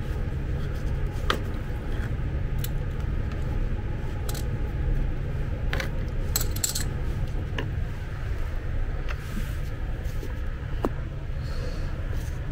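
Metal hand tools clinking: a wrench and pliers knocked and picked up off the floor, a handful of separate sharp clinks over a steady low background hum.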